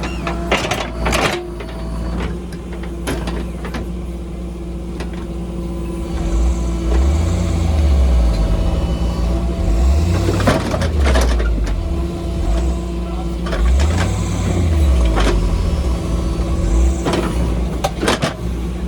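Heavy diesel engines running under load, the deep engine note rising and falling repeatedly as the machinery strains, with a few sharp knocks near the start, in the middle and near the end.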